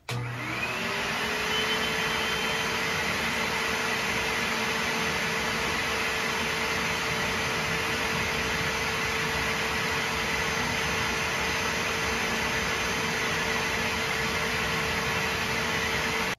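Bissell Little Green Pet Deluxe portable carpet and upholstery cleaner switched on. Its motor spins up over the first second to a steady whining hum over a rush of suction noise, then cuts off abruptly at the end.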